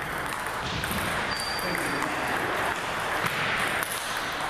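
Table tennis balls clicking irregularly off paddles and tables, over a steady background of people talking.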